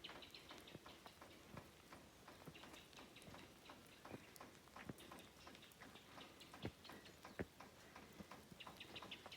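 Faint, scattered ticks and taps of light rain dripping, irregular and quiet, with a quick run of short high bird chirps near the end.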